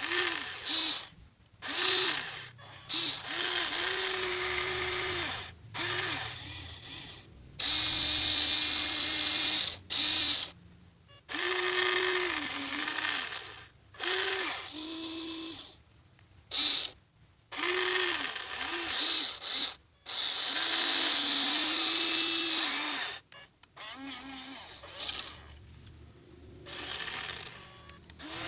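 Electric gear motors of a Huina 1593 RC excavator whining in a series of short runs as its functions are worked, each run starting and stopping sharply, with its pitch rising as it spins up and falling as it stops. Most runs last under a second; a few, such as about four, eight and twenty seconds in, run for two to three seconds.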